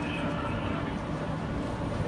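Busy city street ambience: a steady rumble of traffic with indistinct voices.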